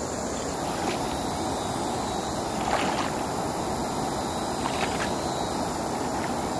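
River water flowing steadily, with a few faint splashes from someone wading into the shallows.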